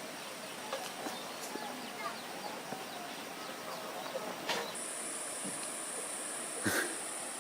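Faint outdoor village ambience: scattered distant voices or animal calls, with a steady high-pitched whine setting in about halfway through and a couple of sharp clicks.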